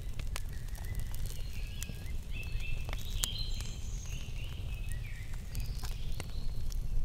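Wood campfire crackling, with irregular sharp pops under a frying pan of eggs, and short thin high whistles at several points. A steady low rumble, like wind on the microphone, runs underneath.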